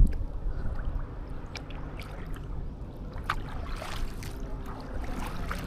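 Kayak paddles dipping and splashing in seawater, with water trickling off the blades. There are short splashes about a second apart over a low, steady rumble.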